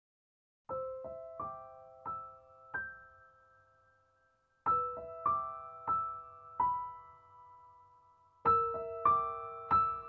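Background solo piano music, starting just under a second in: slow phrases of single struck notes, each ringing and fading away.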